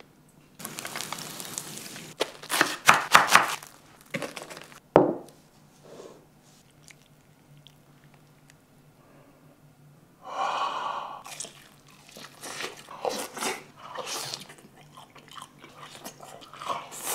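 Egg-and-onion mixture tipped from a frying pan into a stone bowl. In the second half come crunching bites into a deep-fried breaded cutlet, with many short crunches and chewing.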